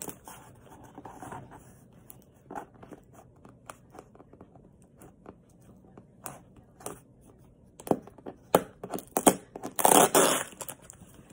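Cardboard shipping box being opened by hand: fingernails scratching and picking at the tape, then a run of louder tearing rips near the end.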